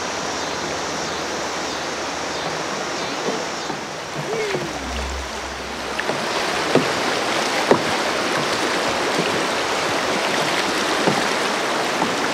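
River water rushing over rocks in shallow rapids, a steady noise that gets a little louder about halfway through, with a few brief knocks.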